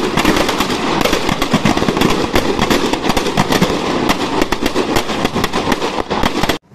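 Firecrackers packed inside a burning Dussehra effigy going off in rapid succession, a dense crackle of sharp bangs several times a second. It cuts off abruptly near the end.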